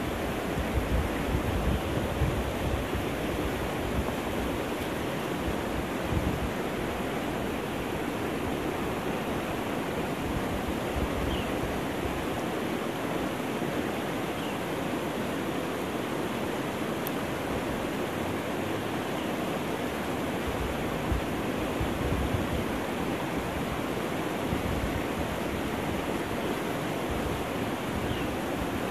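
Steady rushing of river water, with wind buffeting the microphone at times.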